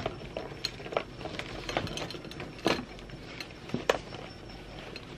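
Handling noise as a cloth tote bag is packed: irregular clicks, knocks and rustles as objects, among them a charger and its cord, go into the bag, with the loudest knocks a little under three and four seconds in.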